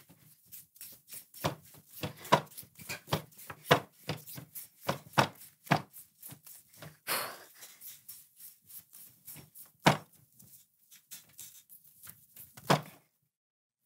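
Rope pulled up hand over hand and dropping in coils onto a pile on a wooden desk: a run of irregular soft thuds and rustles, several a second, with a longer swish about seven seconds in. It stops about a second before the end.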